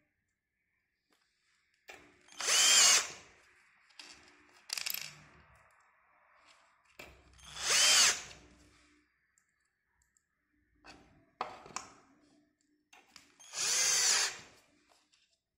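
Cordless drill/driver driving screws through steel concealed cabinet hinges into a cabinet door panel, in three bursts of about a second each with the motor whine rising and falling. Light clicks come between the bursts as screws and hinges are handled.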